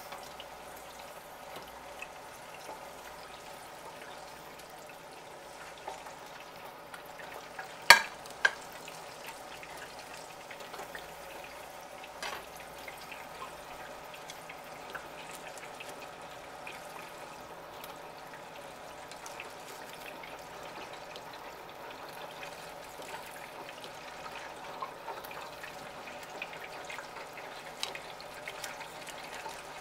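Hot oil sizzling steadily in an electric deep fryer, with two sharp knocks close together about eight seconds in.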